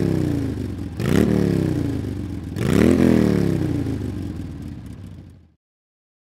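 Motorcycle engine being revved: the revs sink away, climb sharply again about a second in and again about three seconds in, each time winding down slowly. Near the end the sound cuts off suddenly.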